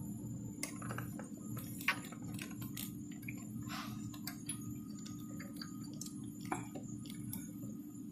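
Scattered light clicks and taps of a spark plug being handled and threaded back into its hole by hand, over a steady low hum.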